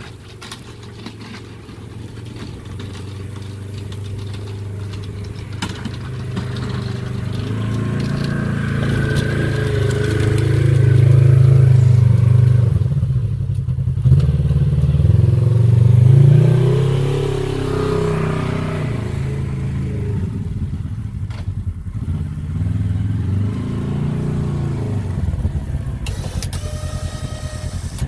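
Polaris RZR XP 1000 side-by-side's twin-cylinder engine running while it plows snow and drives up close. It grows louder, revs with rising and falling pitch about midway, then runs steadily nearby.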